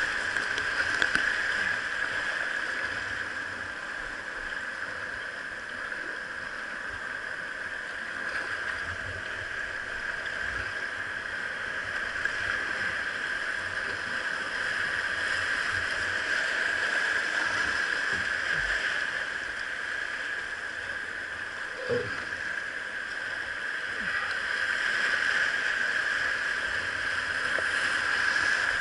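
Rushing river water around a whitewater kayak, a steady hiss that swells and eases, with one brief knock about three-quarters of the way through.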